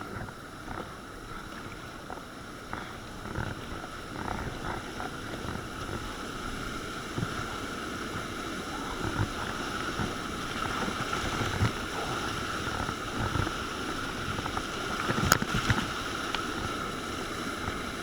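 River whitewater rushing and splashing around a kayak on the water, getting louder over the second half, with a sharp knock about fifteen seconds in.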